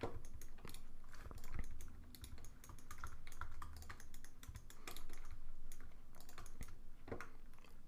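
Computer keyboard keys being tapped in irregular clusters of clicks, the sound of shortcut keys being pressed while editing a 3D mesh.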